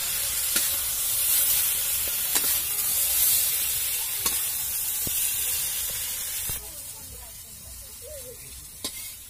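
Brinjal pieces sizzling in hot oil in an iron kadai, with a metal spatula scraping and knocking against the pan every second or two. The sizzle drops off about two-thirds of the way through as the fried pieces are lifted out into a bowl.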